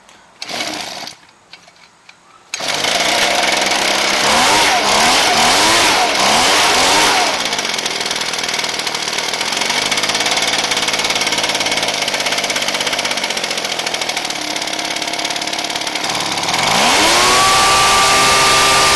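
Ryobi two-stroke backpack blower engine starting after a brief burst of sound: it catches about two and a half seconds in, revs up and down unevenly, settles to a steady idle, and near the end is run up to a high, steady speed. It is running on a replacement carburetor after a no-start.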